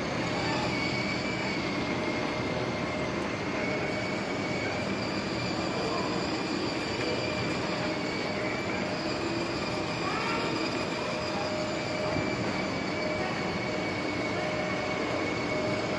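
Battery-powered ride-on toy jeep driving along, its electric motors and gearboxes giving a steady whine over the noise of its plastic wheels rolling on a tiled floor.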